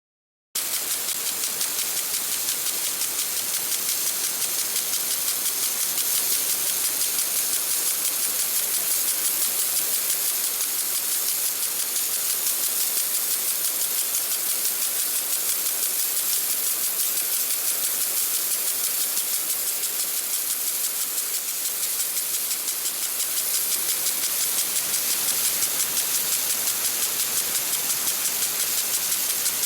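Lawn sprinkler spraying water: a steady high hiss with fast rattling ticks, starting about half a second in.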